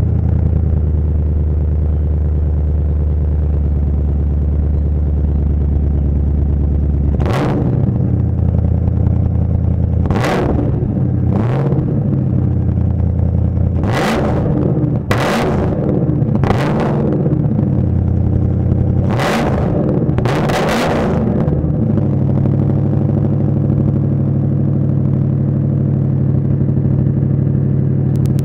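Lincoln Town Car's V8 through a 2.5-inch exhaust with Thrush glasspack mufflers, idling cold and loud, then blipped about eight times in quick revs that rise and fall before it settles back to idle.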